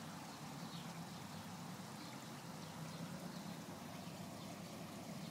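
Faint steady ambience of trickling water over a low hum, with faint high chirps every second or so.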